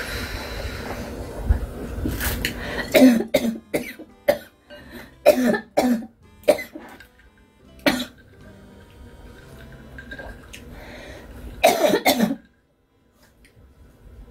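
A woman coughing again and again in short fits, with a throat-clearing sound, set off by the chili heat of the spicy ramen she is eating.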